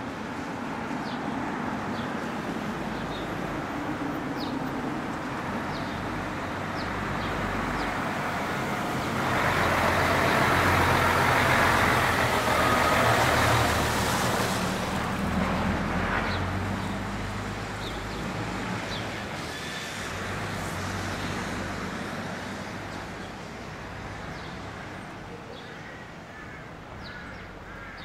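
Street traffic noise with a low engine hum. A heavy road vehicle passes close by, loudest about ten to fourteen seconds in, then fades away.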